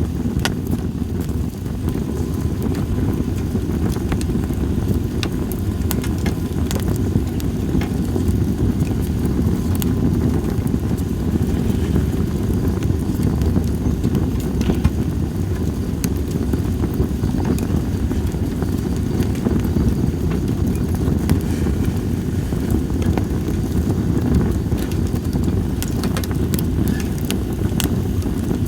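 Split sawtooth oak (kunugi) firewood burning in a campfire, with scattered sharp crackles and pops over a steady low rumble of wind on the microphone.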